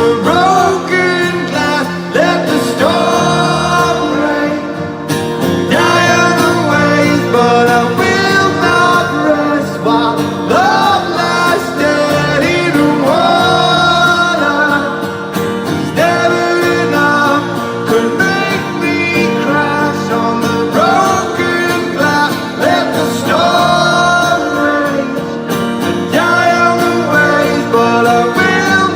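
Live band playing a guitar-led song, with a wordless sung vocal line over it.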